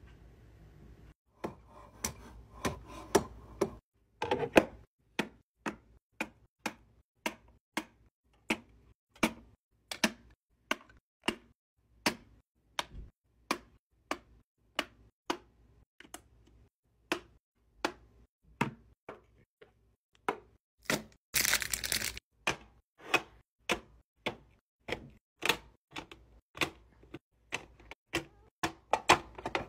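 Plastic and glass cosmetic tubes and bottles clicking and clacking as they are set down one after another into a tray and clear acrylic organizers, about two clicks a second. A short rustle of handling, like crinkling packaging, comes about two-thirds of the way in.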